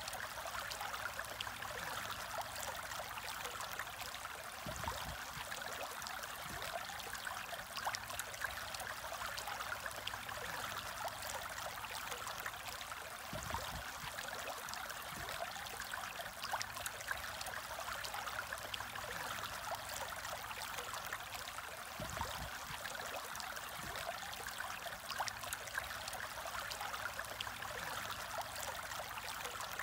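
Aquarium aerator's stream of air bubbles rising and breaking at the surface, a steady bubbling trickle of water. A few soft low thumps are heard a few times along the way.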